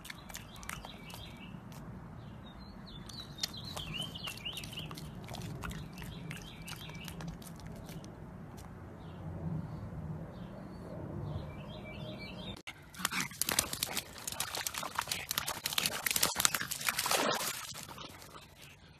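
Birds chirping over a low background, with small crunching clicks. About two thirds in it changes abruptly to loud, rough splashing and sloshing as a pug moves through muddy water.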